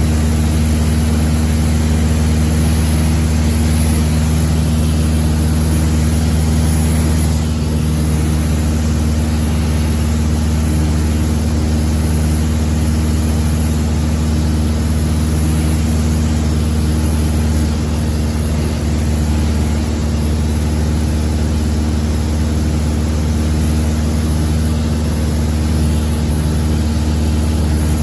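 Light aircraft's engine and propeller droning steadily, heard from inside the cabin.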